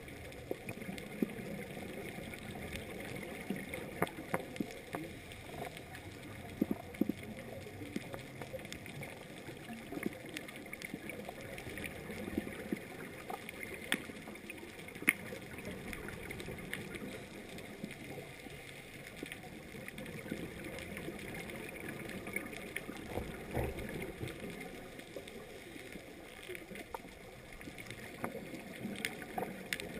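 Underwater ambience picked up by a GoPro in its waterproof housing: a steady hiss with many scattered sharp clicks, and a brief low gurgle about two-thirds of the way through.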